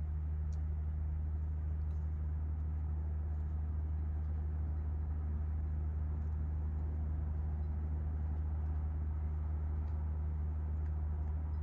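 Steady, unchanging low engine hum with a few faint light ticks.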